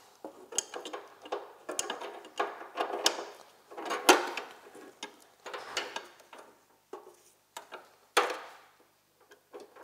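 Small metal parts of a vintage snowmobile chassis being handled with gloved hands: irregular clicks, knocks and short scrapes, with a sharper knock about four seconds in and another about eight seconds in.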